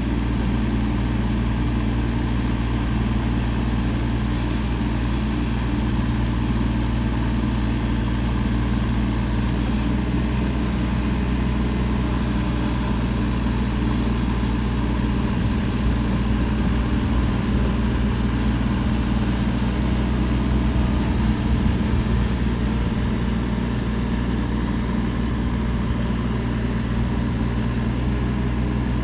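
Kubota RX-406E mini excavator's diesel engine running steadily, with a slight swell in level about two-thirds of the way through.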